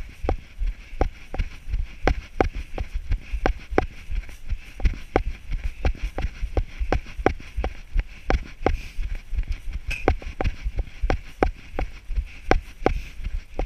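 Rhythmic footfalls thudding on grassy ground at about three a second, jostling a moving camera.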